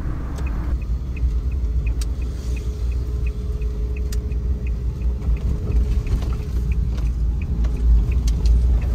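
Kei van driving, heard from inside the cabin: a steady low rumble of engine and road noise, with a light even ticking about twice a second and an occasional sharp click.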